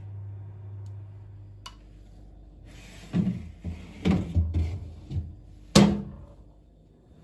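Kitchen handling sounds: a low steady hum that stops about a second and a half in, a click, a run of knocks and rustles, then one sharp knock about six seconds in, like a door or container being shut.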